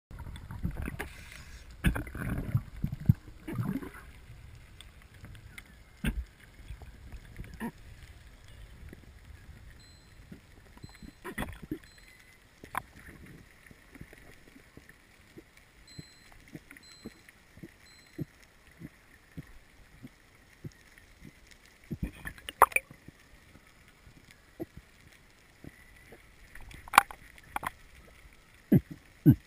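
Underwater ambience: a low hiss with scattered sharp clicks and knocks, and heavier water rumbling and knocks in the first four seconds.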